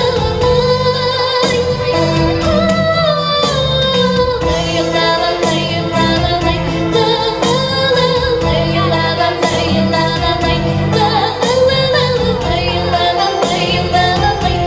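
A girl singing a Ukrainian pop song into a handheld microphone, holding notes with vibrato, over recorded backing music with a steady beat and bass.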